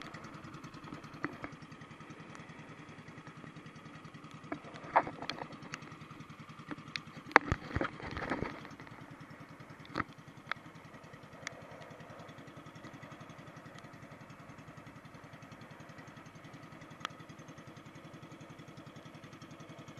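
Small outrigger boat's engine running steadily at trolling speed, with a few sharp knocks and clatters around the middle.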